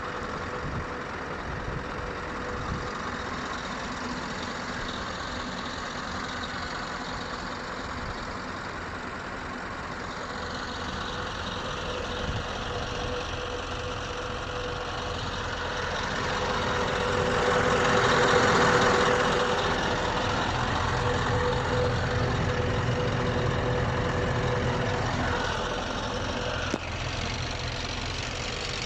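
Scania R560's V8 diesel engine idling steadily, growing louder for a few seconds a little past halfway, then settling back.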